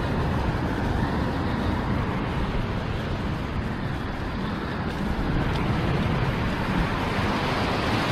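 Sea surf washing and churning over a rock ledge, a steady rush of water.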